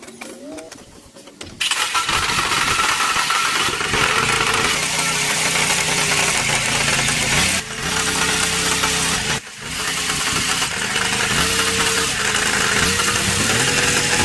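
Farm tractor engine starting about a second and a half in, then running and being revved, its pitch rising and falling several times, with two brief drops in level near the middle.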